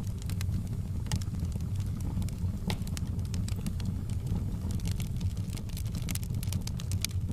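Campfire crackling, with frequent irregular sharp pops over a steady low rumble.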